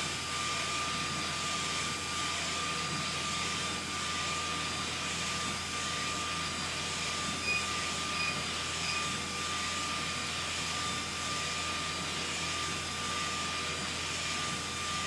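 SK UV6145 UV flatbed inkjet printer running while printing on wood: a steady mechanical whir and hiss with a thin, constant high whine, and a couple of faint brief chirps about halfway through.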